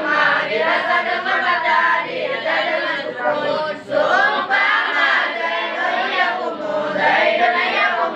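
A group of boys chanting nadham verses on Arabic grammar (nahwu and sharaf) in Acehnese, a sung recitation in continuous melodic phrases, with a short breath pause about four seconds in.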